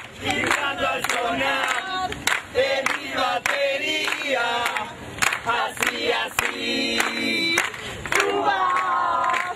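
A crowd singing and chanting together in loud voices, with hand claps.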